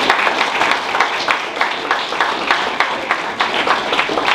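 A roomful of people applauding: many hands clapping at once in a dense, steady patter.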